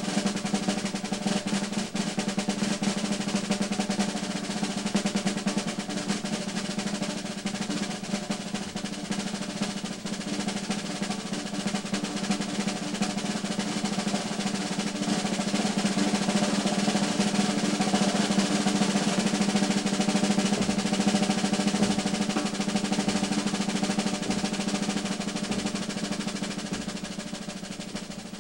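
Sustained snare drum roll on a Slingerland drum kit, played with sticks, swelling in loudness past the middle with a few bass drum beats under it, then gradually softening near the end.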